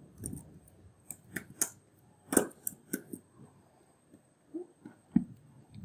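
Computer keyboard being typed on: a dozen or so sharp key clicks at an uneven pace, with short pauses between runs.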